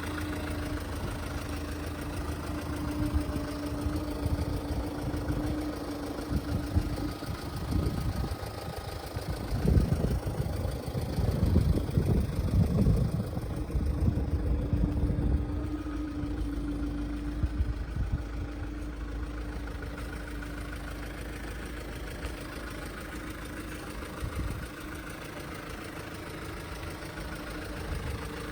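Wind gusting, with strong low rumbling buffets on the microphone that swell for several seconds in the middle, over a steady low hum.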